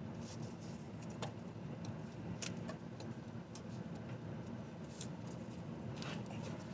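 Scattered light clicks and taps at uneven intervals from the breaker bar and the serpentine belt being worked onto the pulleys against the tensioner, over a steady low background rumble.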